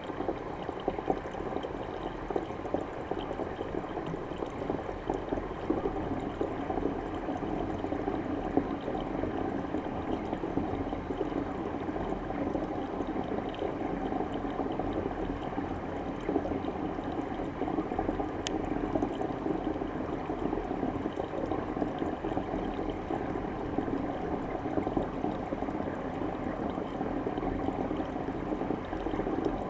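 Steady rushing and bubbling of water pouring into a tank, heard through a submerged camera, with one sharp click about two-thirds of the way through.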